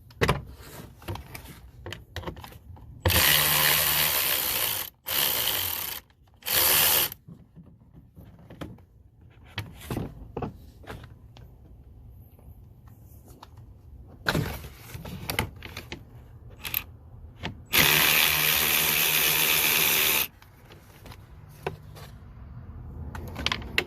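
Cordless drill driving a 7mm socket, running in short bursts to back out screws: a run of about two seconds a few seconds in, two short runs right after, and a longer run about three-quarters through, with light clicks of handling in between.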